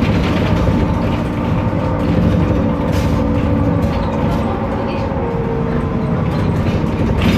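Inside a BMC Procity city bus under way: its Cummins ISB turbo-diesel engine and road noise run steadily. A sharp knock from a loose part comes about three seconds in and again near the end.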